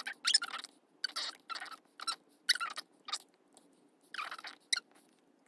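Plastic pipette tip dragged along the bottom of a clear plastic dish in about eight short scraping strokes, each lasting a fraction of a second.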